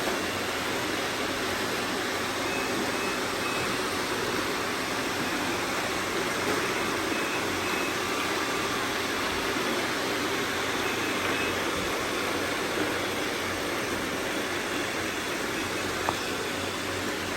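Robot vacuums running together: a steady, even whir of suction and brush motors, with a few faint short beeps here and there and a single sharp click near the end.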